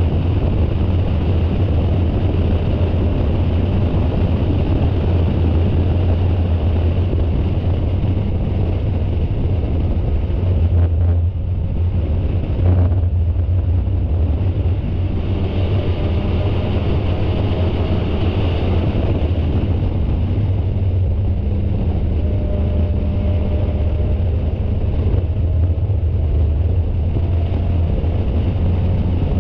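Spec Miata race car's four-cylinder engine running hard under load at speed, with wind and road rumble. The engine note drops briefly about eleven seconds in, as for a lift or gear change, then picks up again.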